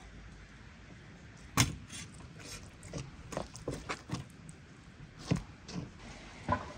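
Sharp, irregular knocks and clinks of a knife and metal skewers on a wooden cutting board while raw marinated meat is worked. A loud one comes about one and a half seconds in, then a quick run of them over the next few seconds.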